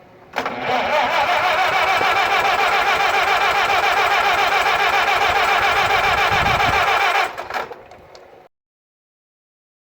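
1948 Farmall H tractor's four-cylinder engine running steadily for about seven seconds, then dropping off sharply.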